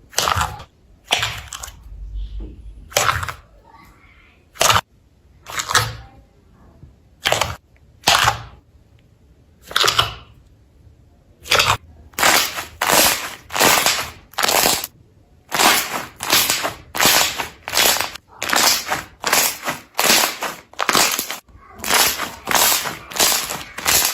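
Slime being pressed and squished by hand, each press giving a short crackling pop. The presses are spaced a second or two apart at first, then come about twice a second from halfway through.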